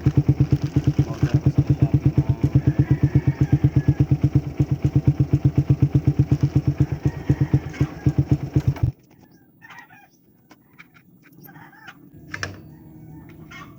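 Motorcycle exhaust with an Akrapovic-style 51 mm big-elbow pipe and a DB killer packed with steel wool, idling with a rapid, even beat, then cutting off abruptly about nine seconds in when the engine is shut off. Faint clucking of chickens follows.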